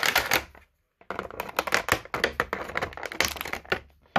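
Stiff plastic packaging crackling and clicking in quick, irregular bursts as a boxed action figure is worked free of its tray, with a short break about half a second in.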